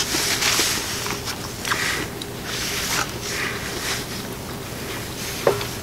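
Close-miked eating sounds: chewing in uneven bursts, with a few sharp clicks of a fork against the food bowl.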